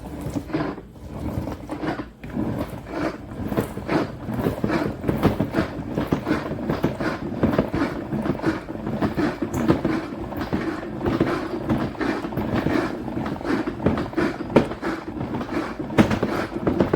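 Vileda EasyWring spin mop bucket's foot pedal pumped over and over, spinning the wet mop head in the plastic wringer basket with a rhythmic clatter over a steady whirr.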